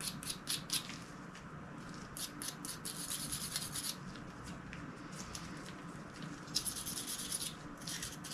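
Stainless steel wire brush scrubbing a metal shotgun part in quick back-and-forth strokes, about four a second, in several short bursts with brief pauses between.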